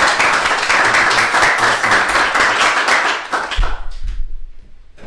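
Audience applauding: a dense patter of hand claps that dies away about three and a half seconds in, followed by a dull thump and a few light knocks.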